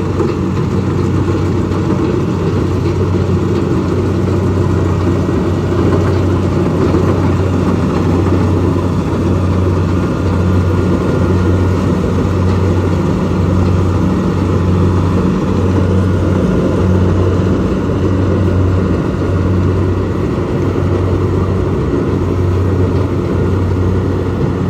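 Kubota DC70 combine harvester's diesel engine running steadily, with a strong low hum that pulses evenly.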